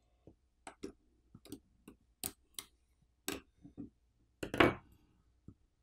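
Small, sharp clicks and taps of a plastic pry tool on a smartphone's internal connectors as the sub-board flex cable and coaxial cable ends are popped off, about a dozen in irregular succession, the loudest near the end.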